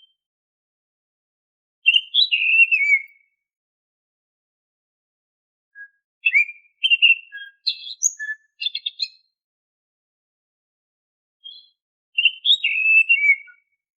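Oriental magpie-robin (kacer) singing in clear whistled phrases, three of them with silence between. The first and last are short runs of falling whistles. The middle one is longer and more varied and ends in quick repeated notes.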